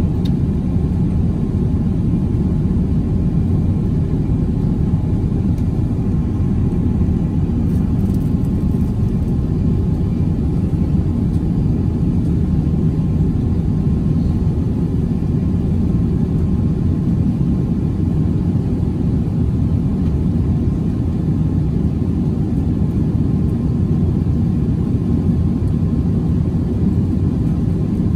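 Steady low cabin noise inside an Airbus A350-900 climbing out after takeoff: its Rolls-Royce Trent XWB engines at climb power and air rushing past the fuselage, heard from the cabin at an even level.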